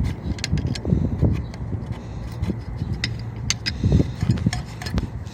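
Small sharp metal clicks and scraping as pliers work the just-freed shaft of a small pressure water pump that had seized from disuse. A few low handling thumps and a steady low hum sit behind it.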